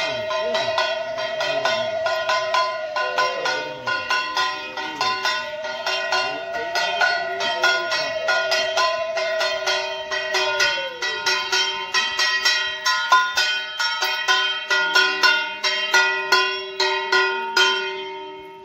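Metal puja hand bell rung rapidly and continuously, several strikes a second with ringing between them. A long wavering high tone is held over it twice in the first half, and the ringing fades at the very end.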